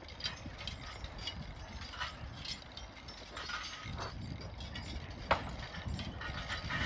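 Percheron draft horses at work: harness hardware clinking and jangling with hooves clopping and a low rumble, and one sharp knock about five seconds in.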